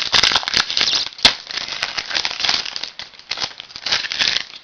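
Wrapper of a trading-card pack crinkling and tearing as the pack is opened, with a sharp snap about a second in.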